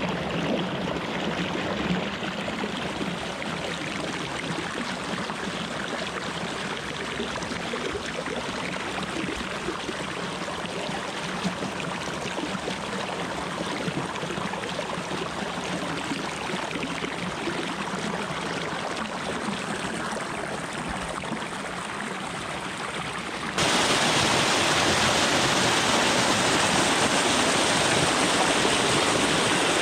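Morgan Falls, a tall stepped waterfall running at low flow, with water splashing steadily down the rock. The rushing gets abruptly louder and brighter about three-quarters of the way through.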